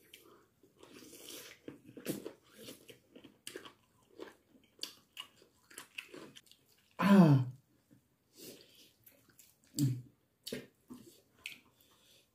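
Close-up chewing and lip-smacking of braised chicken: a steady run of short wet clicks and smacks. About seven seconds in comes a short vocal sound that falls in pitch, with a briefer one near ten seconds.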